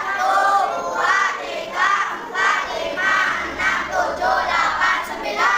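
A group of young children chanting loudly in unison, in short phrases.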